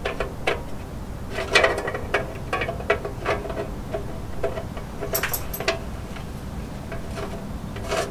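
Scattered light metallic clicks and ticks as the engine oil drain plug, fitted with a new crush washer, is threaded by hand into the oil pan of a Unimog U1300L, bunched in small clusters, with a faint steady hum underneath.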